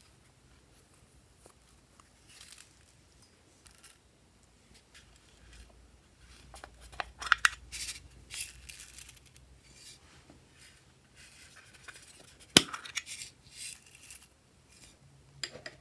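Small plastic sequins and confetti shapes being tipped from a dish onto slime in a glass baking dish: scattered light rattling and ticking in a few clusters, with one sharp click about two-thirds of the way through.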